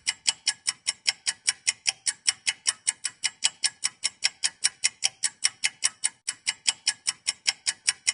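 Rapid, perfectly even ticking, about six sharp clicks a second, that starts abruptly.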